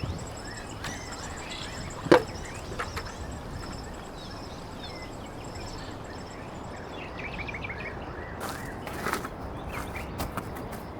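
Firewood being chopped with an axe: one loud, sharp strike about two seconds in, then a few fainter knocks near the end.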